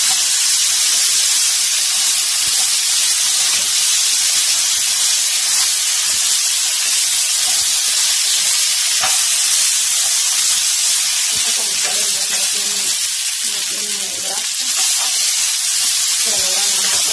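Chicken breast strips sizzling in a nonstick frying pan, a steady hiss, as a spatula stirs and turns them.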